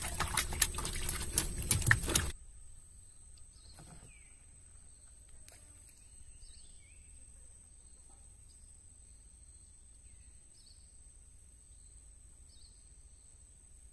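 Rapid clattering and knocking for about two seconds as a just-caught fish is handled and thrashes in the wooden boat's hold, cutting off sharply. After that, faint short chirps from birds repeat every second or so over a steady high-pitched whine.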